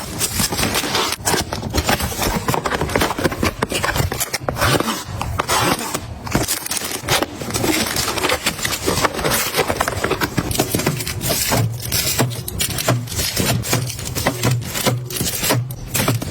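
Continuous scraping and rubbing of household items being handled, with many quick knocks and rustles and no pause.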